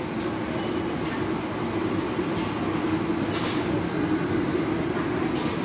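Ceiling-suspended air conditioner's indoor fan unit running with a steady hum and airflow noise, without the abnormal noise now that its sagging fan motor housing has been shimmed level.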